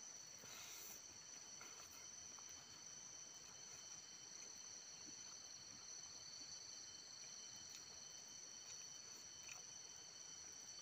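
Faint, steady high-pitched chirring of insects such as crickets, in two or three unbroken tones, with a few soft clicks and a short rustle about half a second in.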